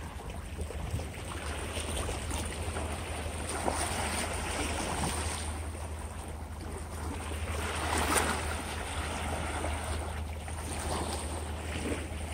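Calm sea lapping and washing against a shoreline rock, in soft swells with a louder wash about eight seconds in, over a steady low rumble.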